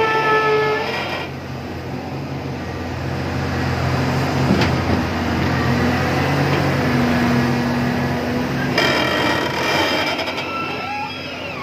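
Hydraulic log-grapple crane working: a steady machine drone from its engine and hydraulics, with a single knock about four and a half seconds in. A high, steady pitched tone sounds in the first second and again from about nine seconds in.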